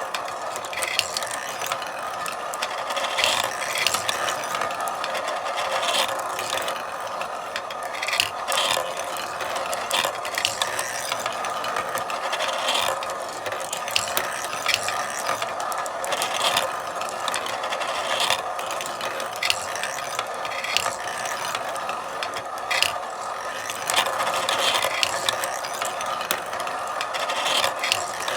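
Marbles rolling and clattering along a marble run: a steady rolling rattle with sharp clicks every second or so.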